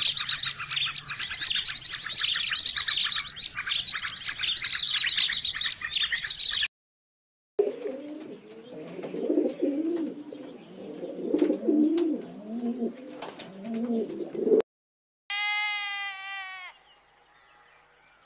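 A blue-headed parrot's rapid, high chirping calls, then after a short gap a pigeon cooing in low, rolling phrases. Near the end comes one short, falling lamb bleat.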